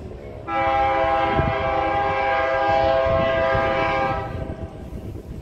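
Diesel freight locomotive's multi-chime air horn sounding one long blast of several notes at once, starting about half a second in and lasting nearly four seconds. A low rumble from the approaching train runs underneath.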